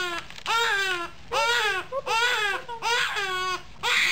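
Infant crying hard in a run of about five wails with short pauses between, each wail falling in pitch: distressed crying while the baby's leg is held down for a vaccination shot.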